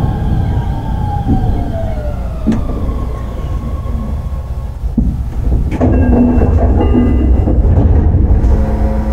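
Mitsubishi IGBT VVVF inverter and traction motors of a Shin-Keisei 8900 series train running, heard inside the car over steady track rumble. The whine glides down in pitch over the first couple of seconds, a couple of knocks come through, and from about six seconds a new steady whine sets in.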